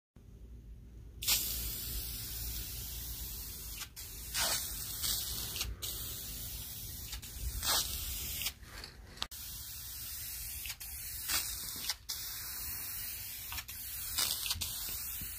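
Aerosol can of spar urethane spraying onto a wooden paddle blade: a steady hiss that starts about a second in and runs in long passes, broken by a few short gaps.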